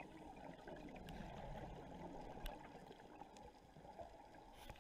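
Faint, muffled bubbling and gurgling of a scuba diver's exhaled breath leaving the regulator, heard underwater through the camera housing.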